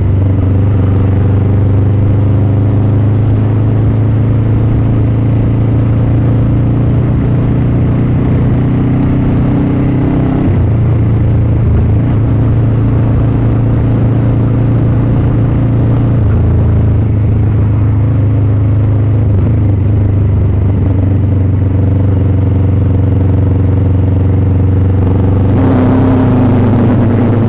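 Motorcycle engine running while riding, a loud steady engine note that changes pitch about ten seconds in, again about sixteen seconds in, and near the end.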